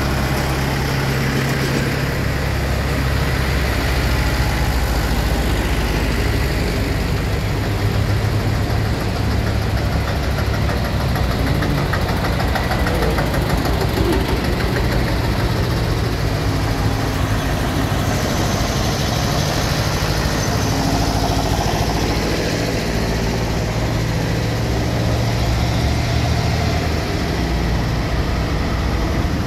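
Vintage farm tractors' diesel engines running at low speed as several tractors pass close by, one after another, with a steady, low engine note that shifts as each goes past.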